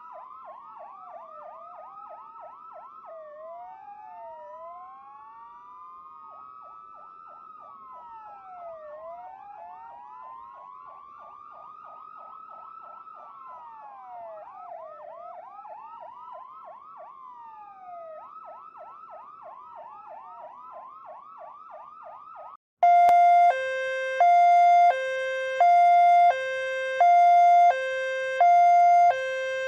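Electronic ambulance siren switching between a slow rising-and-falling wail and a fast yelp, with more than one siren overlapping. About three-quarters of the way through it cuts abruptly to a much louder two-tone hi-lo siren alternating steadily between two pitches.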